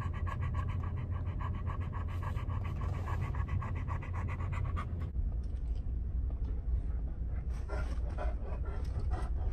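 American Staffordshire Terrier (pit bull) panting hard with its mouth open, a fast even rhythm of about eight breaths a second, over a steady low rumble. The panting breaks off about five seconds in, leaving only a few scattered, softer breaths near the end.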